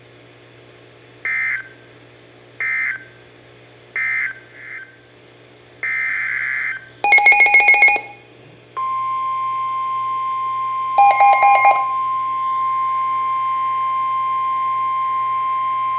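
NOAA Weather Radio alert signalling: three short digital data bursts about a second apart, the end-of-message code closing the previous warning, then a longer data burst. Electronic alarm beeps sound briefly about seven seconds in and again about eleven seconds in, and from about nine seconds a steady 1050 Hz warning alarm tone runs on, announcing the next severe thunderstorm warning.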